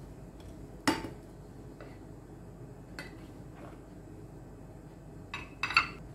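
Dishes and utensils clinking against each other: a loud ringing clink about a second in, a lighter tap around three seconds, and two quick clinks near the end.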